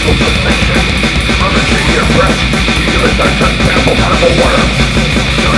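War metal recording: loud, dense distorted guitars over fast, steady drumming.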